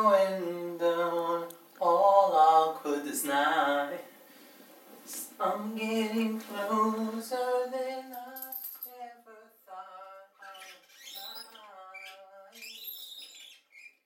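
A person singing in long, wavering notes, loud at first and fainter from about eight seconds in.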